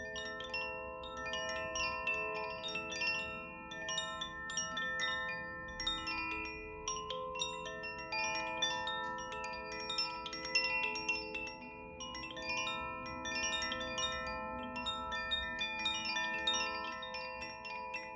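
Chimes ringing in a continuous tinkling cascade: many bright metal notes struck in quick succession, each ringing on and overlapping the others.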